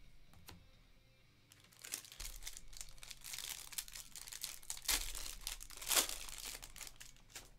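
Clear plastic card sleeve crinkling and crackling as a trading card is slid into it and handled, starting about a second and a half in, with the sharpest crackles around five and six seconds in.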